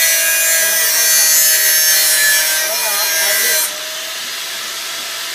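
Electric angle grinder's disc biting into a stainless steel square tube, a loud hissing grind over the steady whine of the motor. A little over halfway through, the disc comes off the metal and the grinder keeps spinning with just its motor whine.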